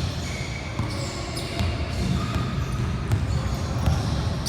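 Basketball game in play: a basketball bouncing on the court a few times over a steady background hubbub in the hall.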